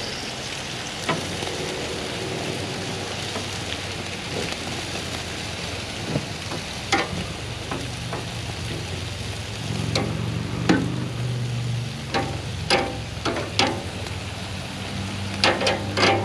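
Pork and skirt steak sizzling on a grill, with metal tongs clicking against the grate as the meat is turned: a few clicks at first, then many in the second half. A low steady hum comes in about ten seconds in.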